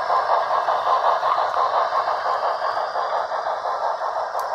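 HO scale model train running along the track: a steady rattling hum with a quick, even pulse.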